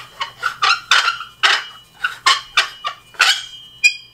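Metal path-light top being screwed onto its stem: about ten short squeaks and scrapes from the threads, one after another with each turn. The metal shade rings briefly after some of them, most clearly in a ringing tone near the end.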